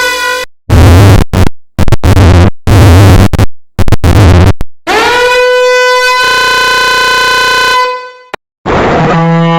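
Variations of the 'danger alarm' meme sound effect, played one after another and loud. A siren-like tone ends; then come about five short blasts heavy in the bass. The tone glides up and holds for about three seconds, a click follows, and a lower horn-like tone starts near the end.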